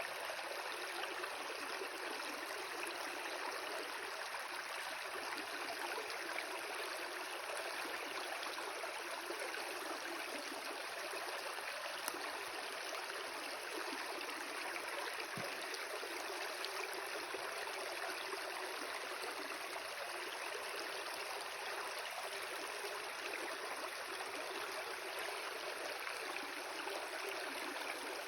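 Water in a stream flowing steadily: an even, unbroken rushing hiss.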